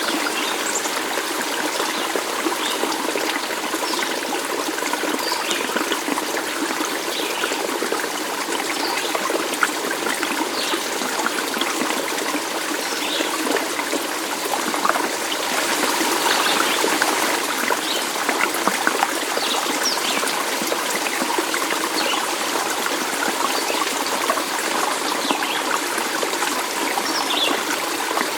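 Stream water trickling and babbling steadily, with small bright plinks of water scattered through it.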